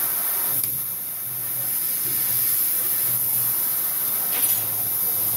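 CO2 laser cutting machine cutting sheet metal: a steady high-pitched hiss of assist gas jetting from the cutting-head nozzle, with a faint on-and-off low hum underneath.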